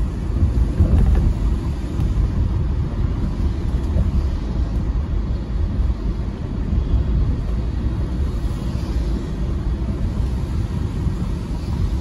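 Car driving on a wet road, heard inside the cabin: a steady low road rumble with a faint hiss above it.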